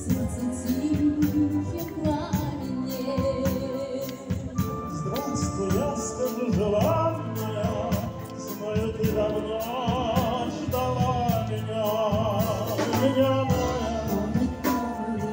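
A live wind band of brass and saxophones playing a song over a steady beat, with a singer on microphone holding a wavering vocal line through the loudspeakers.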